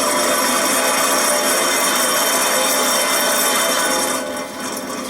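Worn rear wheel bearing hub of a 2010 Dodge Journey being turned, giving a continuous rough grinding rasp that eases briefly about four seconds in and picks up again near the end. The sound is the sign of a bad bearing, really rough and horrible-sounding.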